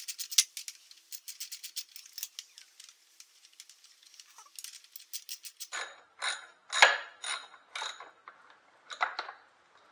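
A hand ratchet driving an 8 mm Allen bit clicks in quick runs of fine ticks as the bolt is backed out. From about six seconds in come half a dozen louder, sharp metallic clinks and knocks.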